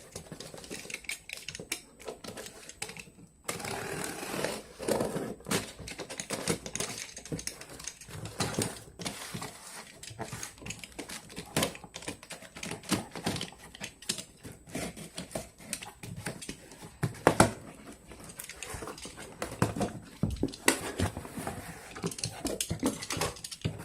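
Hands opening a speaker's retail packaging: irregular rustling, scraping, clicks and knocks of cardboard and plastic being handled, with a few sharper knocks near the middle and toward the end.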